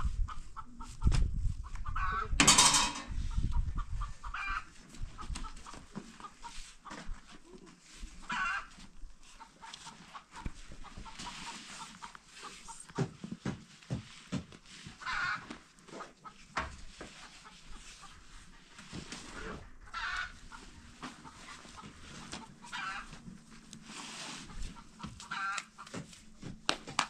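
Chickens clucking in short calls every few seconds, with rustles and knocks from a large cloth sheet being shaken and folded; the loudest moment is a sharp swish about two and a half seconds in.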